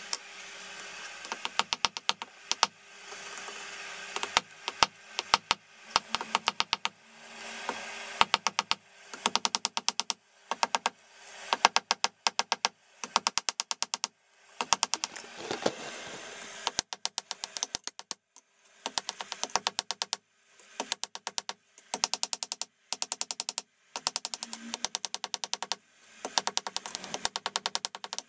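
Hand hammer striking hot bearing-race steel on an anvil in quick runs of sharp blows, several a second, with short pauses between runs, as the tang is isolated and drawn out. A fainter steady noise fills the pauses.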